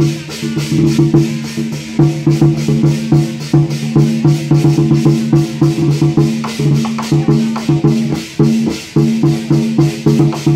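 Lion dance percussion: large Chinese barrel drums beaten in a fast, steady rhythm, with metallic strikes and a low ringing tone sustained underneath.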